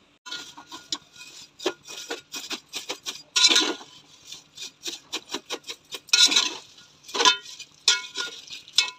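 Metal spatula scraping and knocking against a metal pot while stirring vermicelli frying in ghee: a string of short scrapes and clinks, with louder strokes about three and a half seconds in and again around six and seven seconds.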